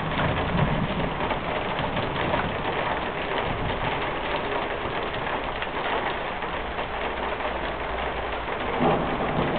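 Steady rain falling as a thunderstorm dies away, an even patter with no sudden changes.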